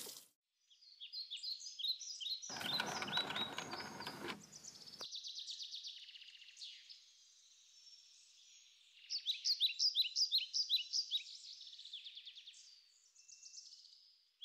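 High-pitched chirping calls in quick runs of short notes. A brief rustling noise comes about two and a half seconds in.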